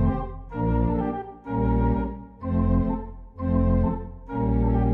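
Organ music playing repeated sustained chords, each swelling and fading about once a second in a steady rhythm.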